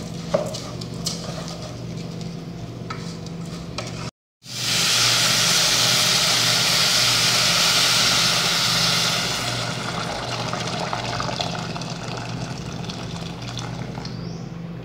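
Rice frying in oil and seasoning in a stainless steel pot, stirred and scraped with a wooden spoon over a light sizzle. After a brief cut, just-boiled water is poured from a kettle onto the hot rice and hisses loudly for about five seconds. The hiss then settles into a quieter sizzle.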